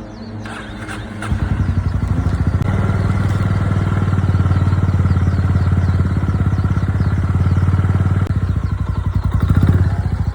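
Honda GB350 motorcycle's single-cylinder engine running with a rapid, even pulse; it gets much louder about a second in and swells briefly near the end.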